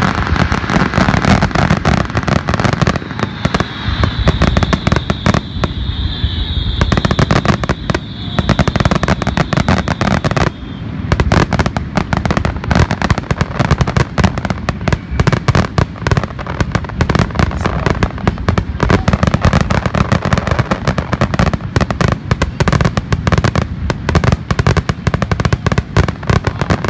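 Aerial firework shells bursting in a rapid, unbroken barrage of bangs and crackles, many a second: a grand finale. A high steady whistle is heard through it from about three to ten seconds in.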